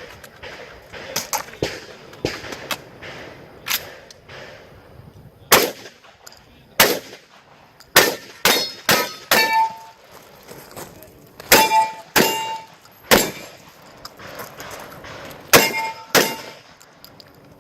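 A 12-gauge shotgun firing a string of shots at an uneven pace, some in quick pairs. Several hits bring a clang and a short ring from steel targets, most plainly in a run of shots about eight to nine seconds in, again near twelve seconds and near sixteen seconds.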